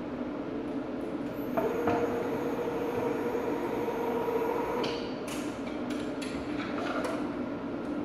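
STEP 100 escalator step-cleaning machine running on escalator steps: a steady mechanical hum, with a higher motor whine from about a second and a half in until about five seconds, then a few clicks and knocks.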